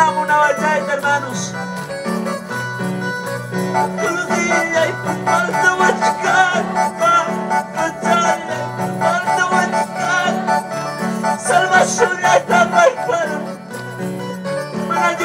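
Live worship music over loudspeakers: an electronic keyboard band playing a song with a steady, repeating bass line and a singing voice.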